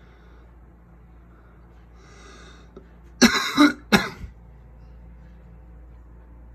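A person coughing twice: a louder first cough and a shorter second one about half a second later, over a low steady hum.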